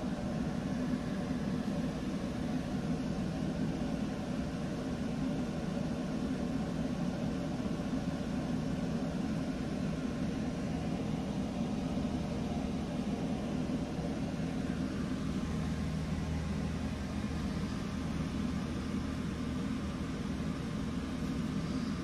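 Steady mechanical hum of a room with a faint hiss, unchanging throughout, with no distinct events.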